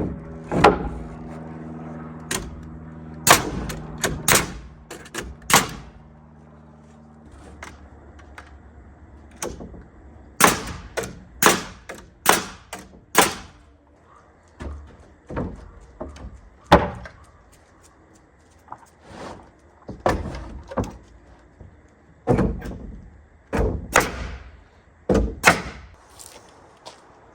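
Building work on OSB plywood sheathing: a long series of sharp knocks and bangs at irregular intervals, several in quick runs, over a steady low hum that stops about seven seconds in.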